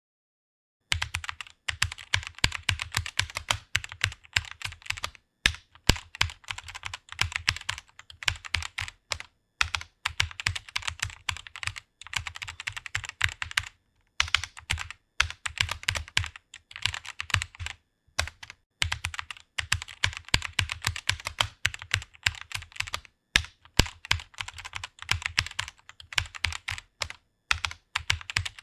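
Fast typing on a computer keyboard: a quick, uneven run of keystroke clicks starting about a second in, broken by brief pauses between words and phrases.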